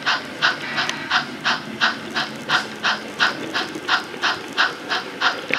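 Sound-equipped On30 model steam locomotive chuffing in an even beat, about three chuffs a second, over a low steady rumble.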